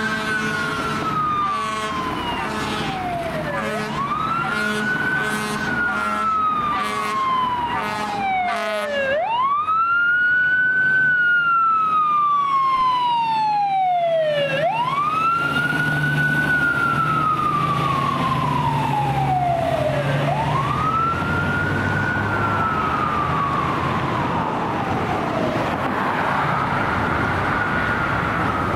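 Fire engine siren wailing in slow cycles, each one rising quickly and then sliding down over about five seconds, on a 2005 Pierce Arrow XT pumper. During the first nine seconds it is punctuated by repeated short air-horn blasts. The truck's engine rumbles under the siren around the middle as it passes.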